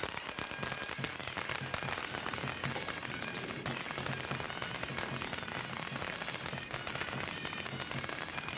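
A string of firecrackers going off continuously: a rapid, dense crackle of small bangs that does not let up.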